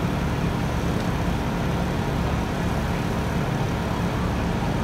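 Fire truck engine idling, a steady low rumble with a hum.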